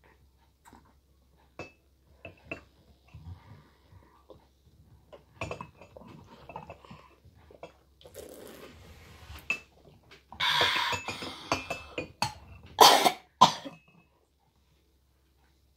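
Light clicks and scrapes of a plastic ladle against a cup of hot chocolate, then a person coughing loudly a few times in the second half.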